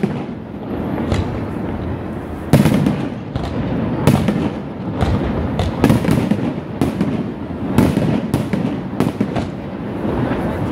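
Fireworks display: aerial shells bursting in an irregular run of about ten loud bangs, roughly one a second, over a continuous din between them.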